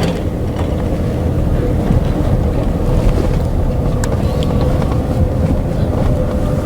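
Vehicle driving: steady low road and engine rumble heard from inside the cabin, with a faint constant hum and a few light ticks.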